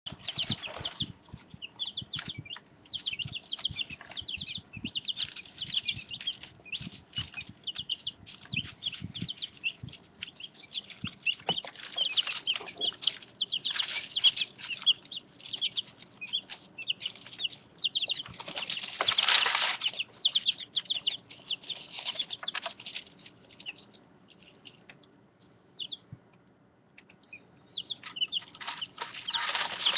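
Newly hatched chicks peeping in a brooder: rapid runs of short, high peeps that go on with few pauses and thin out briefly a little before the end. Soft knocks and scuffling come in the first ten seconds, and a brief louder rustle comes about two-thirds of the way through.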